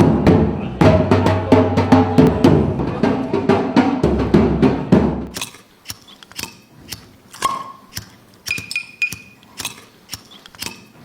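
Music with a bass line and quick percussive hits that breaks off about five seconds in, leaving sparse knocks and clicks with a few short tones.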